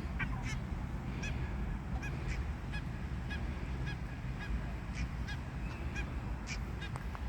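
Geese honking, a run of short, repeated calls, over a steady low rumble.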